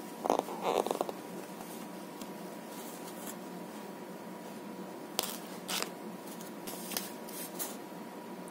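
Crochet handling noises: teal thread and a steel crochet hook worked by hand against paper, a brief scratchy rustle at the start, then a few light clicks and taps in the second half.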